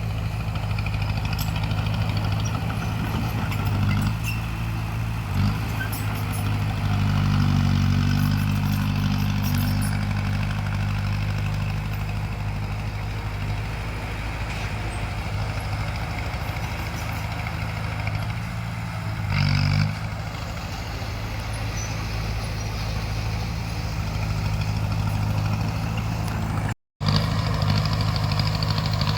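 Bulldozer's diesel engine running steadily, working harder for a few seconds early on and briefly again midway. The sound breaks off for a split second near the end.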